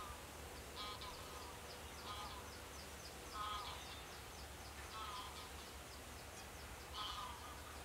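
Geese calling from a distance: short honks every second or two, the loudest about three and a half and seven seconds in, over a faint, fast, high ticking.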